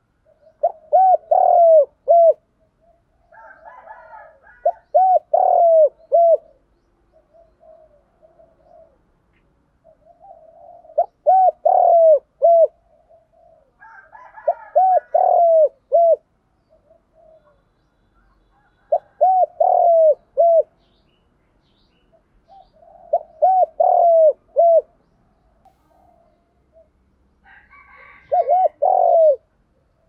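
Spotted dove cooing: seven phrases of a few short, arching coos, one about every four seconds, with softer coos between them.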